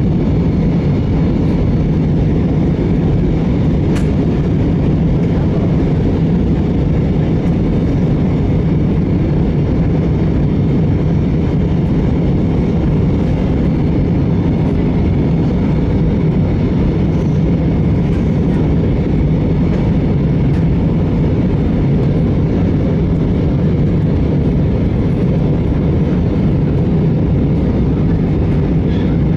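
Steady cabin noise inside an Airbus A320 descending: an even low rumble of engines and airflow, with a single click about four seconds in.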